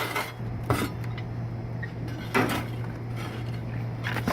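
Metallic clinks and rattles, twice, about a second in and again near the middle, as metal parts and debris are handled inside a rooftop air-conditioning unit, over a steady low hum.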